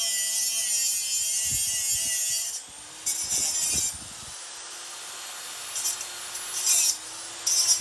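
Workshop tool work on a small metal part: a steady high hiss with a faint hum runs and cuts off about two and a half seconds in, followed by several short bursts of scraping or rubbing.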